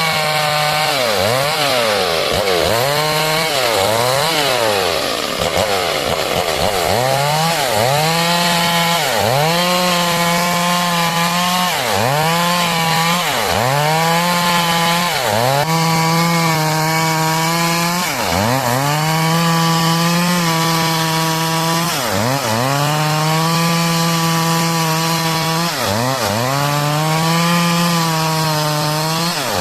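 Stihl MS 382 two-stroke chainsaw running at high revs while sawing wood into boards. Its engine pitch drops sharply and climbs back about every two seconds, and more often in the first several seconds.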